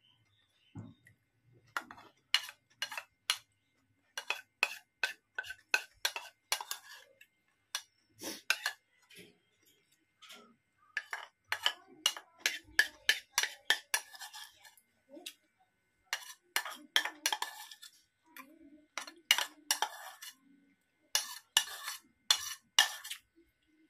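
Metal spoon clinking and scraping against a bowl again and again in quick irregular clusters as someone eats from it, with some slurping and mouth sounds between.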